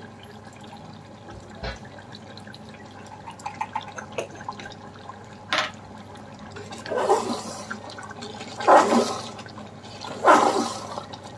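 Mutton and tomato gravy bubbling and crackling in an open pressure cooker on the gas, then stirred with a spoon: three loud swishes about a second and a half apart near the end.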